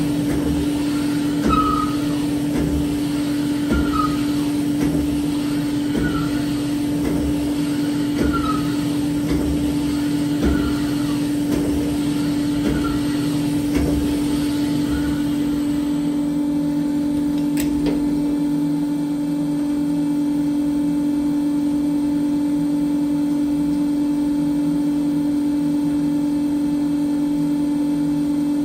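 A spindle machine works a bore in a part clamped in a fixture: a steady motor hum with a short sound repeating about every two seconds. A little past halfway the cutting stops, a sharp click follows, and the hum runs on alone.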